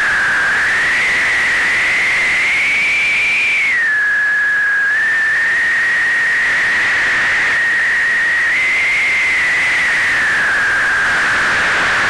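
White noise synthesized in ChucK: a steady, loud hiss carrying a whistle-like pitch that drifts slowly, dropping a little about four seconds in, rising again near nine seconds and sinking toward the end.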